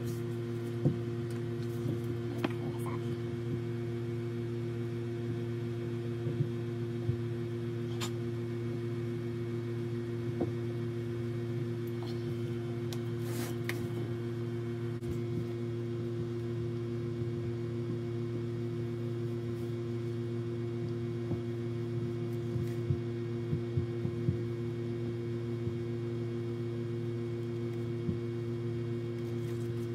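A steady low hum, with occasional faint clicks and taps as a metal casting flask and small tools are handled on a work surface.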